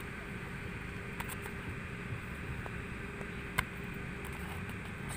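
Steady low outdoor background rumble, with a few faint clicks and one sharp click about three and a half seconds in.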